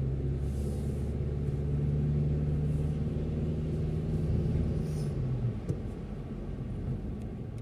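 Car engine and road noise heard from inside the cabin while driving: a steady low hum over a rumble. The hum stops about five and a half seconds in, leaving a lower, rougher rumble.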